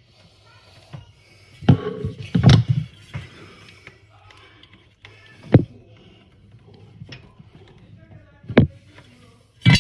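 Handling noise: a plastic light-mounting track knocking and clattering against a wooden kitchen cabinet, with a cluster of knocks about two seconds in, then single sharp knocks roughly every three seconds.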